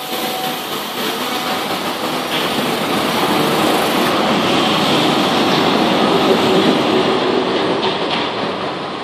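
Wuppertal Schwebebahn suspended-railway car running past, a steady rolling rumble of its steel wheels on the overhead rail. It grows louder past the middle and eases off near the end.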